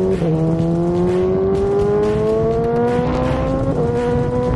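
BMW M1000R's 999 cc four-cylinder engine, breathing through an Akrapovič full exhaust system, pulling hard under acceleration. Its note climbs steadily and drops twice with quick upshifts, once right at the start and again near the end.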